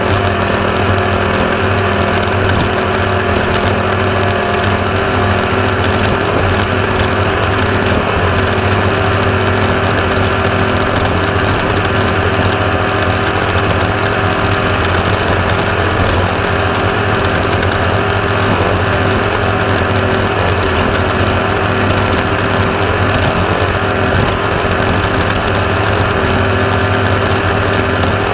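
Onboard sound of a Class 1/2-1600 off-road race buggy at speed: its air-cooled 1600 cc Volkswagen engine drones at a steady pitch under constant clattering and rattling of the car.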